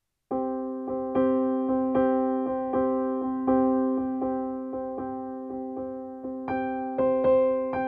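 Background music: a keyboard playing repeated chords in a steady rhythm, with higher notes joining about six and a half seconds in.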